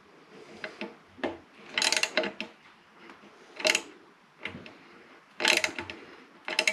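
Hand ratchet wrench clicking in several short bursts as a bolt is turned into a nut.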